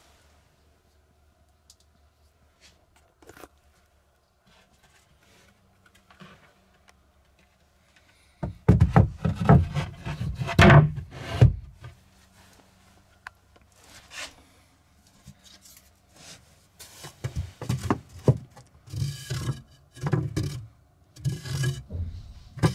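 Wooden boards and a plywood panel being handled and set on a 2x4 frame: scattered knocks, thunks and scrapes of wood, with a louder stretch of handling thumps about nine seconds in.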